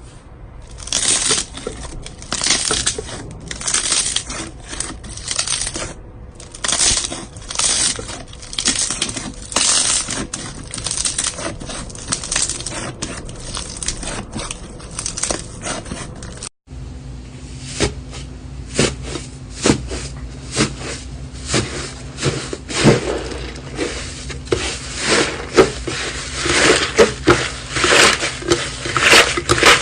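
Slime being squeezed and pressed by hand, a dense run of irregular crackles, pops and squelching clicks. There is a brief gap about halfway through, then more of the same over a faint steady hum.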